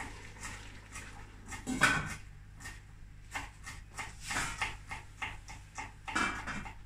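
Small knife chopping fresh greens on a wooden cutting board: short, light taps, about three a second. A louder, longer sound cuts in about two seconds in, and again twice later.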